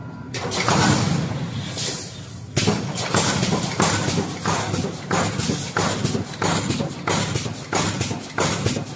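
Pneumatic wire mesh welding machine cycling. A steady hiss of noise gives way, a few seconds in, to a rhythm of sharp clacks about twice a second as the row of welding heads strikes the wires.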